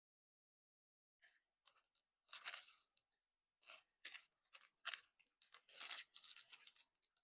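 Chewing a sticky Fruit Roll-Up close to the microphone: irregular short bursts of chewing noise, starting about a second in.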